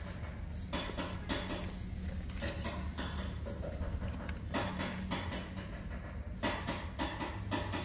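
Bonsai wire scraping and clinking as it is handled, wrapped and bent around a ficus trunk and roots, in short irregular bursts every second or two.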